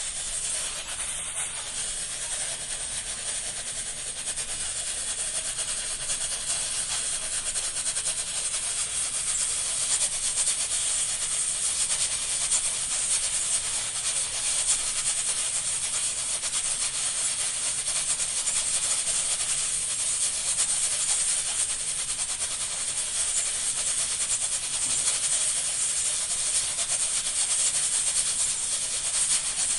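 Pressure cooker venting steam in a continuous high hiss with a fast rattling flutter, typical of the pressure weight jiggling on the vent; it grows a little louder after about eight seconds.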